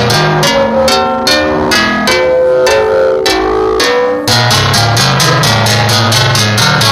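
Music with a fast steady beat, plucked-string notes and a bass line; the bass drops out for about two seconds mid-way, then returns.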